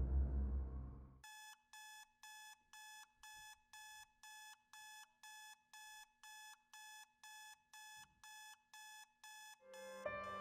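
A loud low rumble stops about a second in, and a digital alarm clock then beeps steadily at about two beeps a second. Piano music comes in near the end.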